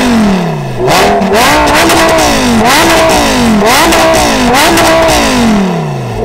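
Lamborghini Gallardo's naturally aspirated V10, fitted with IPE headers, decat pipes and a Capristo back box, revved hard four times in quick succession with the car standing still. Each rev climbs sharply in pitch, holds for a moment and falls back; the last falls away slowly.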